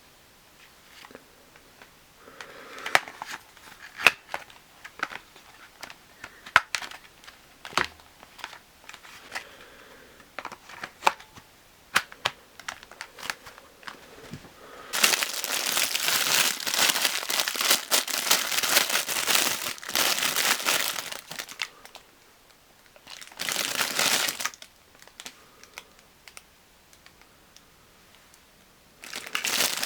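Plastic packaging being handled: scattered clicks and rustles, then long stretches of crinkling and tearing about halfway through and again near the end.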